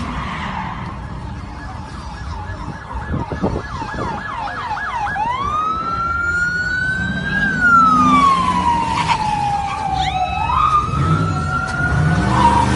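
Police car siren: a fast yelp of rapid rising chirps about three seconds in, switching to a slow wail that rises, falls and rises again. A vehicle engine rumbles underneath.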